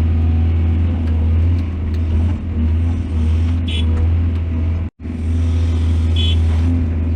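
Heavy diesel excavator engine running with a steady deep drone. The sound cuts out for an instant about five seconds in, and there are two short high squeaks, a little before and a little after that.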